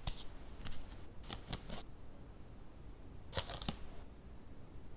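Faint clicks and light taps of long plating chopsticks and fingers setting sashimi slices onto a woven bamboo basket tray, in a few small clusters.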